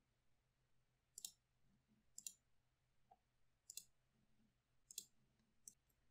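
Computer mouse clicking: five short, sharp clicks spaced about a second apart, the last one fainter, with near silence between them.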